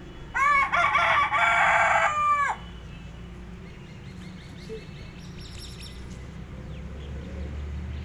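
Rooster crowing once: a single loud crow of about two seconds, starting about half a second in and dropping away at the end.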